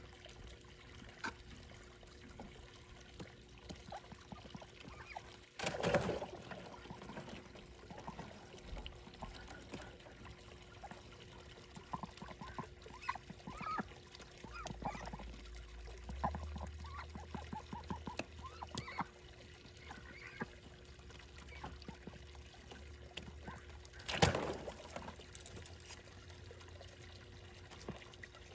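Ducks dabbling and moving in shallow water at the icy edge of a pond, with water trickling. Small wet clicks and splashes come in a cluster mid-way, and there are two louder splashes, one about six seconds in and one late on.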